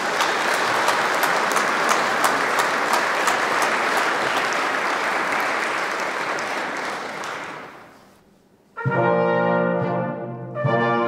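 Audience applauding in a hall, dying away after about eight seconds. About a second later a brass ensemble starts playing sustained chords.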